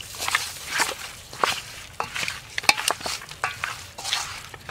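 A bare hand mixing salt and turmeric into raw katla fish pieces in a bowl: wet squelching and rubbing in irregular strokes, about two or three a second.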